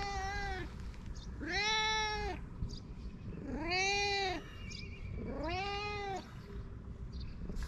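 Long-haired tabby domestic cat meowing repeatedly: three drawn-out meows about two seconds apart, each rising then falling in pitch, with the tail end of another right at the start.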